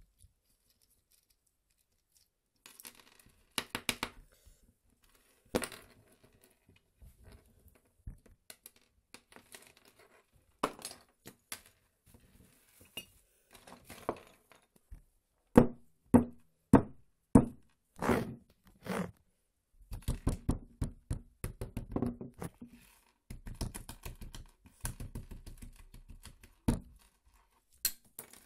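A small keychain light being taken apart by hand on a wooden table: scattered clicks, knocks and rattles of its small plastic and metal parts, with tiny button-cell batteries clicking against the wood. The knocks come thicker and louder in the second half, with quick rattling runs near the end.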